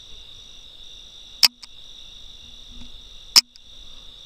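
Steady high chorus of crickets and other night insects, broken by two loud, sharp clicks about two seconds apart, the first about a second and a half in.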